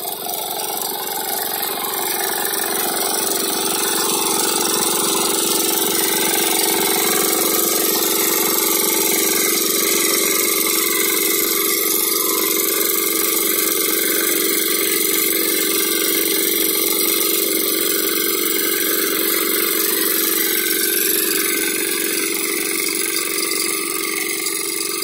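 Engine of a walk-behind two-wheel tractor running steadily under load while its rotary attachment churns through the soil, growing louder over the first few seconds as it comes closer and easing slightly near the end.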